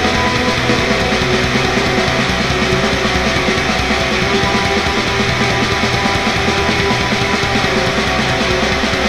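Heavy metal song with distorted electric guitar, loud and dense with no pauses.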